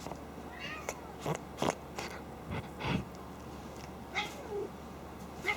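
Domestic cat snorting through its nose during rough play, several short pig-like snorts, with a couple of brief cries between them. The owner says the snorting is playful, not anger.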